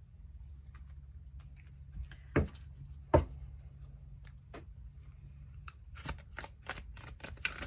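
A deck of tarot cards being handled and shuffled by hand: scattered soft card clicks, two sharper knocks about two and a half and three seconds in, then a quick run of card snaps near the end.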